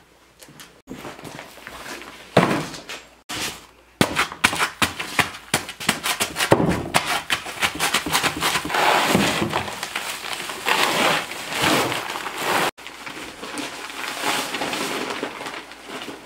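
Hoe blade scraping and chopping at a paper bag of dry countertop concrete mix in a plastic mixing tub, tearing it open, with a dense run of crunches and scrapes in the middle; near the end the dry mix rustles and slides out as the bag is shaken empty. The sound breaks off abruptly several times.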